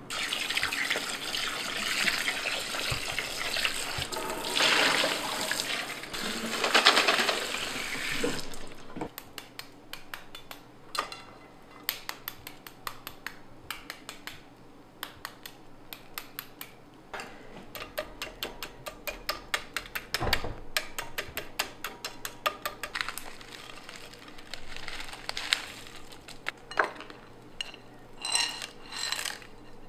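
Water running for about the first eight seconds, then a steel spoon tapping hard-boiled eggs lightly and repeatedly, cracking their shells in quick clusters of clicks.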